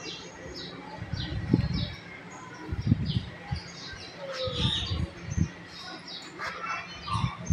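Small birds chirping in short high notes about twice a second, with a few low thumps in between that are the loudest sounds.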